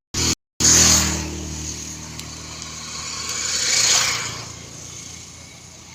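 A motor vehicle's engine running, starting suddenly about half a second in. A rushing noise swells about three to four seconds in, then fades to a quieter steady rumble.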